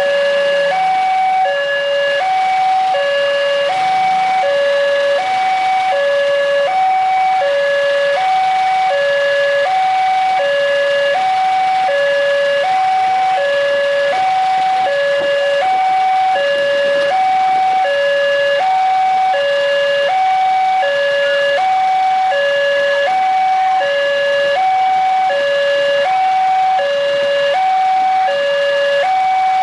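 Electronic warning alarm of a railway level crossing, sounding a steady two-tone hi-lo signal that alternates evenly between a higher and a lower tone about every two-thirds of a second. It is the signal that the crossing is closed for an approaching train, with the red lights flashing and the barrier down.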